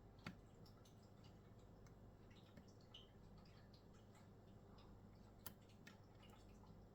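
Faint, scattered clicks of a lock pick working the pins inside a Winkhaus lock cylinder during single-pin picking, with a sharper click just after the start and another about five and a half seconds in.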